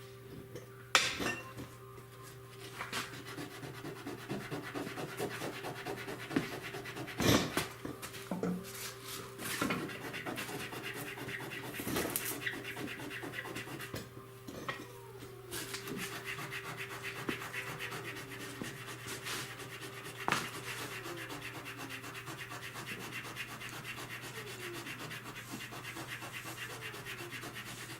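Steady rubbing and scraping on the car's bodywork, like hand sanding, with a few sharp knocks, the loudest about a second in and around seven seconds in. A steady low hum runs underneath.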